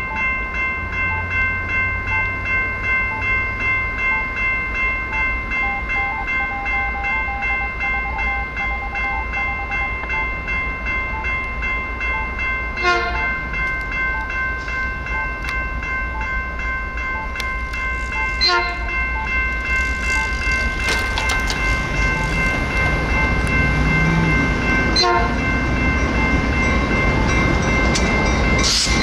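General Signal Type 2 electronic crossing bell ringing in rapid, evenly repeating strikes. Over the second half, the rumble of a passing train builds under it, with a few sharp clacks.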